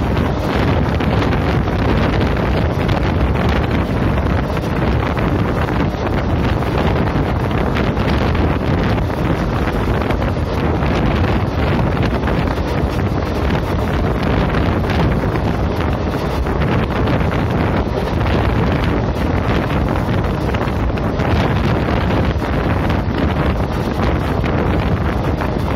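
Wind buffeting the microphone held out of a moving passenger train, over the steady running noise of the coaches on the rails.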